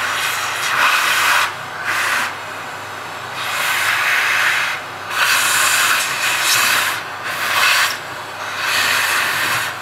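Vacuum cleaner running, its nozzle held against a hair clipper's blade head to suck out trapped hair; the hiss of the suction swells and drops in irregular surges of about a second as the nozzle is moved over the head.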